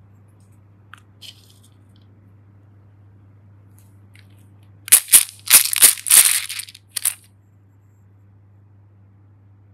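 Hard plastic toy pieces clattering and clacking together in a quick run of five or six loud, sharp cracks about five seconds in, over a faint steady hum.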